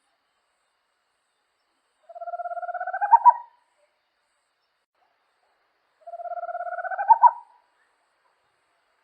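Small Amazonian owl calling: two rapid trills, each about a second and a half long, rising slightly in pitch and ending in a few louder notes, about four seconds apart.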